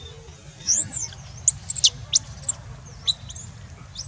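Baby long-tailed macaque crying: a run of short, very high-pitched squeals, each rising and falling in pitch, starting about half a second in and coming in quick clusters.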